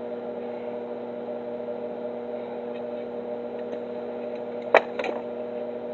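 Steady electrical hum of a stick welding machine left running, with a sharp click a little under five seconds in and a fainter one just after.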